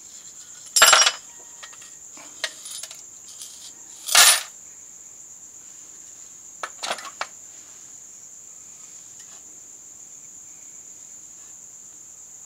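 Knocks and clinks of the dismantled lamp's plastic base, tube and glass envelope being handled and set down in a plastic tray. There are two louder knocks, about one second and about four seconds in, then a few light taps near seven seconds, over a steady high-pitched tone.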